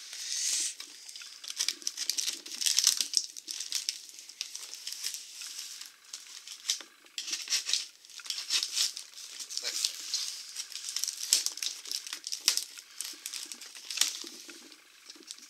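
Box cutter slicing through clear packing tape and cardboard flaps, with the crackle and crinkle of the tape and cardboard being pulled and handled. The crackling is irregular, in uneven swells.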